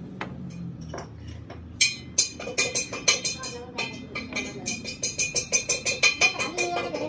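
Steel press tooling clinking as a sleeve is set on a wheel hub bearing, then a fast, uneven run of sharp metallic clicks that ring on, getting denser toward the end, as the press ram is brought down onto the sleeve.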